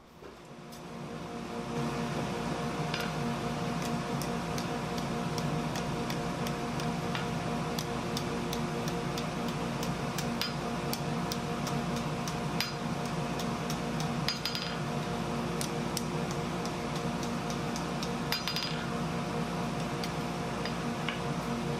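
A steady hum of several fixed tones, fading in over the first two seconds, with light metallic clinks now and then.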